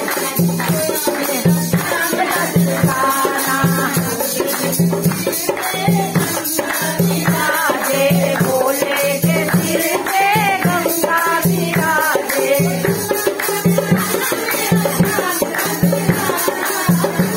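Devotional bhajan sung by a group of women, with a steady low drum beat, hand-clapping and rattling percussion keeping time.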